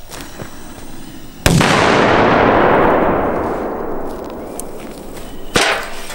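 A large firecracker goes off with one loud bang about a second and a half in, the blast rolling on and dying away over about three seconds. A second, shorter sharp crack comes near the end.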